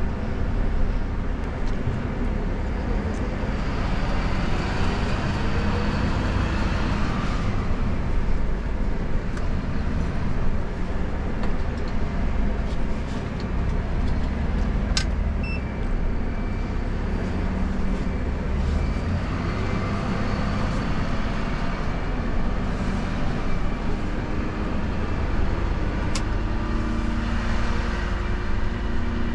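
Cab noise of a Dennis Eagle Elite refuse truck driving slowly: a steady diesel engine rumble with road noise, swelling a few times as it pulls away. Two sharp clicks come about halfway through and again near the end.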